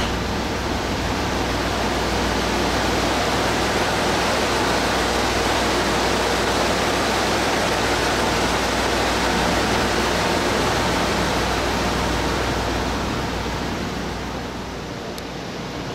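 Steady rushing hum of a stationary 413/455-series electric train's roof air-conditioning and auxiliary equipment running while it stands at the platform. It eases off slightly near the end.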